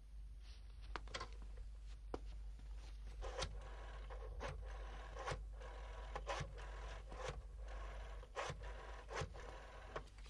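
Desk telephone being dialled: a series of sharp clicks, roughly one a second.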